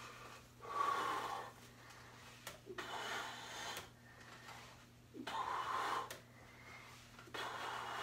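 A man's loud, forced breaths, one with each rep of a weightlifting set. There are four in all, about two seconds apart, over a faint steady hum.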